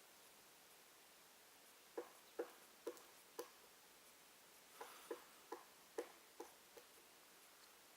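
Black woodpecker pecking at wood: single hard blows about two a second, in two bouts of four and then six knocks, not a fast drumming roll.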